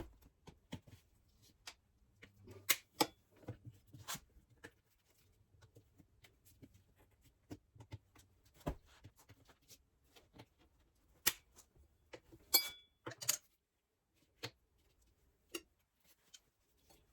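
Scattered clicks and knocks of hand tools being handled during motorcycle tyre work, with one metallic clink that rings briefly about twelve and a half seconds in.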